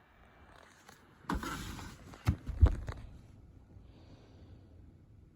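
Handling noise at the small mini fridge: a rustling, scraping stretch starting a little over a second in, with two sharp knocks about two and a half seconds in, the second a dull thump, as something is taken out of the fridge.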